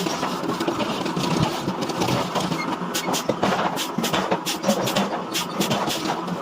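Heavy forging machinery running steadily, with irregular short metallic clicks and knocks over the noise.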